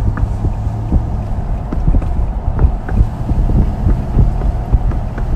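Road and engine rumble of a moving vehicle with wind buffeting the microphone, broken by frequent short knocks and thumps.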